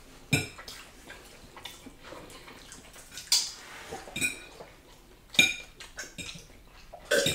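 Metal forks clinking against ceramic dinner plates: about five short, sharp clinks a second or more apart, with quiet scraping between them.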